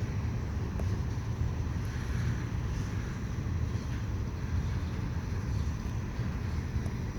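Steady low rumble of a heavy vehicle running.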